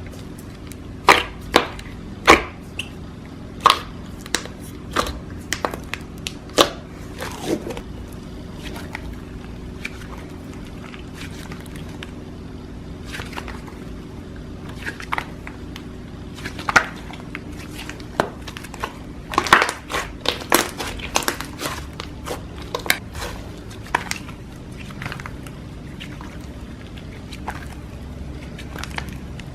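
Slime being played with by hand, making irregular sharp pops and clicks in clusters over a faint steady low hum.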